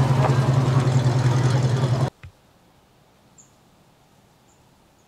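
Steady low engine rumble with a pulsing beat, over outdoor crowd noise, cutting off abruptly about two seconds in. After it, quiet outdoor air with a few faint, short, high bird chirps.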